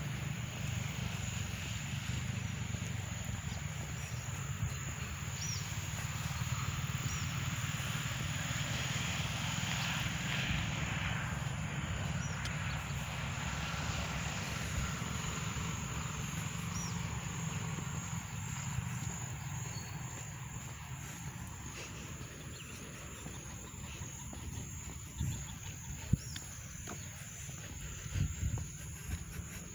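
Outdoor ambience: wind rumbling on the microphone of a handheld phone, with faint insect sound and a few short, high bird chirps. There are a few sharp knocks near the end, the loudest about four seconds before it ends.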